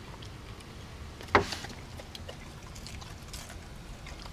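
A single sharp knock about a second and a half in, over faint scattered clicks and a steady low rumble.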